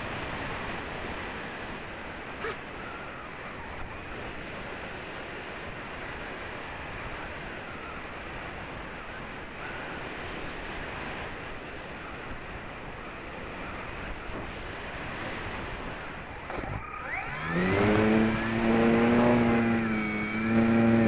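Airflow noise rushing over the wing-mounted keychain camera's microphone as the HobbyKing Walrus glider flies with its motor quiet. About 17 seconds in, the electric motor spools up with a rising whine and then runs loudly, its pitch stepping up and down with the throttle.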